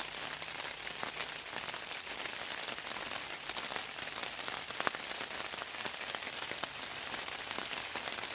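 Steady rain falling, the drops striking a tarp overhead as a dense run of small ticks, with one sharper tick about five seconds in.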